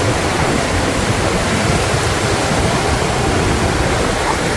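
Steady, loud rushing noise of wind blowing over the microphone, mixed with ocean surf.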